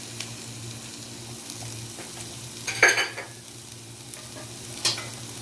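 Sliced onions frying in hot ghee, a steady sizzle, with the pan being stirred and scraped: two louder strokes about three seconds in and near the end.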